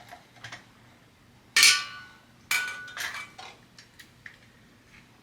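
Metal parts of an old ceiling fan clanking as it is taken down: two loud ringing clanks, about a second and a half and two and a half seconds in, followed by a few lighter clicks and taps.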